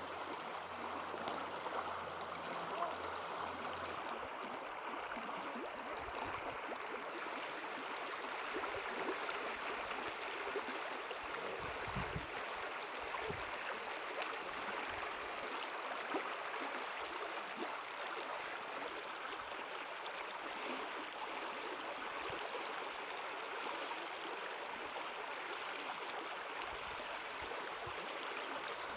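Steady rush of a stream's running water.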